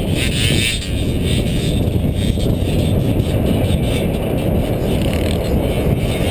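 Off-road vehicle engine running steadily under way across sand, heard from the vehicle's own onboard camera.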